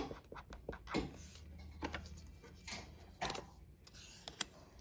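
Permanent marker scratching in short, irregular strokes as it writes on sticker paper, with light rustles and sharp ticks from sticker sheets being handled.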